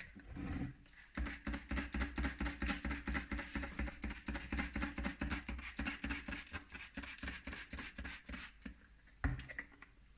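A rag scrubbing soot off fireplace brick in rapid back-and-forth strokes, about five a second, for some seven seconds; it stops near the end, followed by one short knock.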